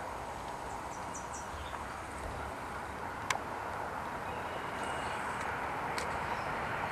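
Steady outdoor background hiss with a few faint, high chirps from small birds, and one sharp click about halfway through.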